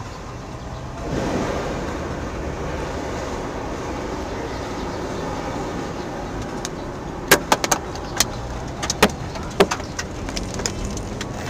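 Car driving on a wet road, heard from inside the cabin: a steady tyre and road noise that swells about a second in. In the second half, a run of irregular sharp clicks or taps sounds over it.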